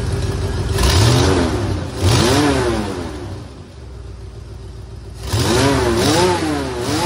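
Ford 351 Windsor V8 with a Holley four-barrel carburetor, revved by hand at the throttle linkage. It is blipped twice, settles back to a lumpy idle, then is blipped three more times in quick succession near the end. It has a pretty bad exhaust leak on one side from a blown-out exhaust donut gasket.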